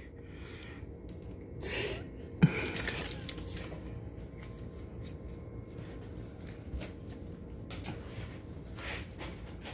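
Trading cards and a booster pack being handled: scattered rustling, with a sharp tap about two and a half seconds in.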